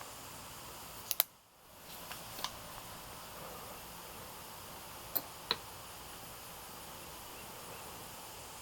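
A few short, sharp clicks over a steady low hiss. The loudest pair comes about a second in, and the hiss drops out briefly just after it. Fainter pairs of clicks follow about two and about five seconds in.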